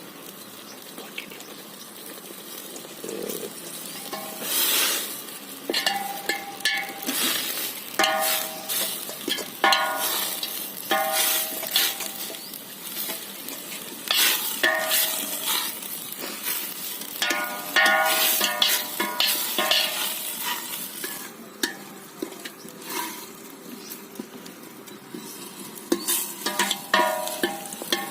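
Drumstick leaves sizzling in a pot while a ladle stirs them, clanking against the pot again and again, with some clanks ringing briefly.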